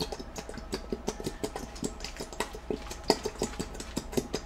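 A spoon stirring thick, sticky glue-and-shaving-cream slime in a bowl: irregular wet stirring noises with small clicks of the spoon against the bowl, the slime thickening as it is worked.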